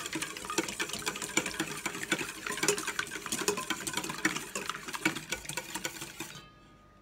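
Wire whisk beating eggs in a stainless steel bowl: rapid, irregular clicking and scraping of the wires against the metal, stopping abruptly near the end.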